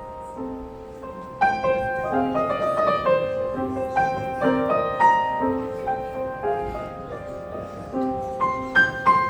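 Solo piano played live: a slow, free passage of single notes and chords that starts softly and grows fuller after about a second and a half.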